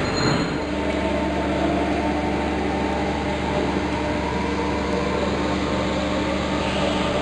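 Steam winding engine of a colliery turning slowly, giving a steady mechanical hum with several held tones that sets in just under a second in.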